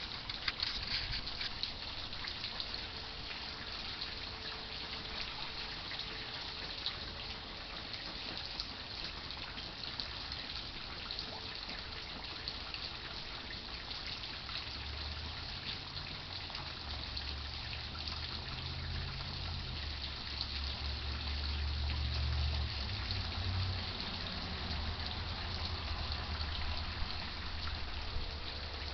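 Heavy rain falling steadily, with the patter of many drops. A low rumble joins it from about halfway through.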